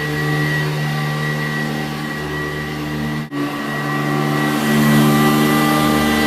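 Sanitaire SC887B-2 commercial upright vacuum cleaner running steadily, its motor giving a steady hum with a high whine. The sound drops out for an instant a little past halfway, then comes back a little louder.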